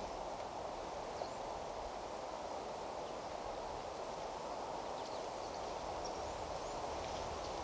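Steady outdoor background hiss, with a few faint, short high chirps scattered through it.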